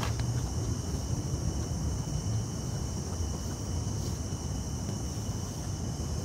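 Portable canister gas camp stove burning under a small metal pot, a steady low roar from the burner. Behind it, night insects keep up a steady high-pitched drone.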